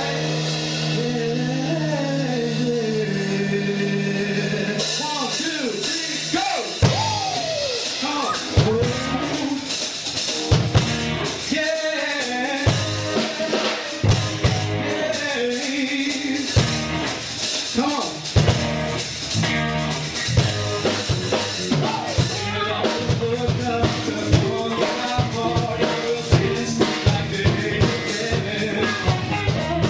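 Live gospel music: a band with drum kit and keyboards plays while a male lead singer sings gliding vocal runs into a microphone. Held chords sound for the first few seconds, and about five seconds in the drums come in with a steady beat.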